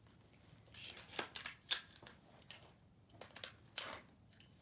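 AR-style rifle being handled to clear a malfunction: a string of short metallic clicks and clacks, the sharpest about a third of the way in. The stoppage is suspected to come from the upper receiver or from magazines not fully inserted.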